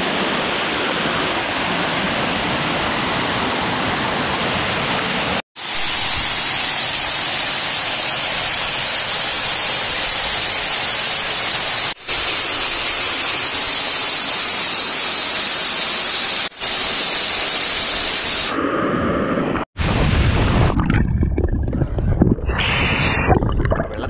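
Waterfall pouring close by: a steady rush and hiss of falling water and spray, broken by a few brief dropouts. Near the end the sound turns muffled, choppy and low, as the water is heard from under the surface of the plunge pool.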